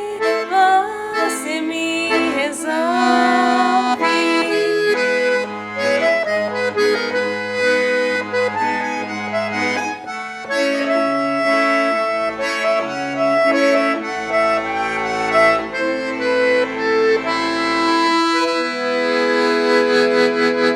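Accordion-led instrumental music of a Portuguese-language song, with sustained melody notes over a steady bass line and the arrangement filling out near the end.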